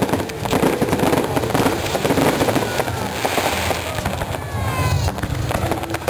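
Fireworks display: a dense, rapid barrage of bangs and crackling from bursting shells and rockets, with a few short falling whistles about four seconds in.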